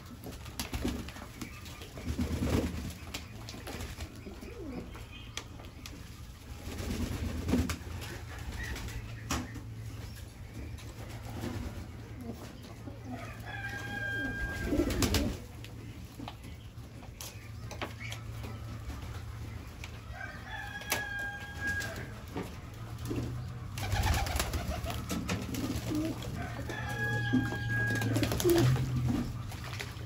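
Pigeons cooing, low repeated coos throughout. A short, higher note sounds three times, roughly seven seconds apart.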